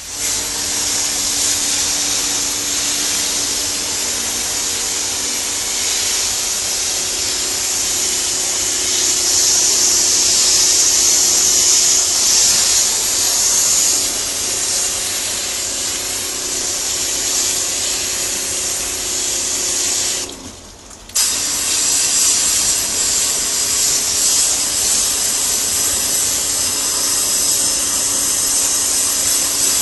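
Pressure-washer jet spraying water onto a split air conditioner's indoor coil during cleaning: a steady hiss of spray over the washer pump's hum. It cuts out for about a second roughly two-thirds of the way through, then resumes.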